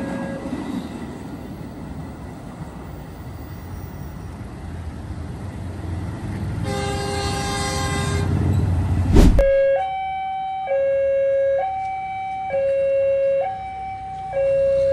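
Rumbling train and traffic noise, a horn sounding for about a second and a half, then a sharp click and a railway level-crossing warning alarm sounding a loud two-tone pattern, high then low, each tone about a second long.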